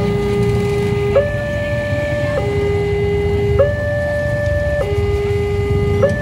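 Railway level-crossing warning alarm sounding its two-tone electronic signal, a low note and a higher note alternating about every 1.2 seconds, while the crossing barrier arms rise once the train has passed. Idling motorcycle engines run underneath.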